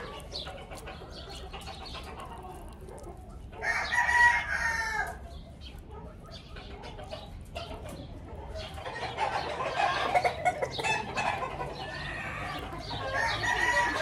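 Roosters crowing and clucking: one loud crow about four seconds in, the loudest sound, then more calls from about nine seconds on and another crow near the end.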